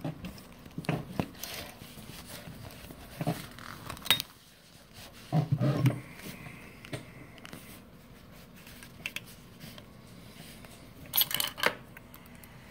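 Handling noises at an industrial sewing machine: fabric and a leather patch shifted and rustled under the presser foot, with scattered clicks and knocks of the machine's parts and a short cluster of clicks near the end.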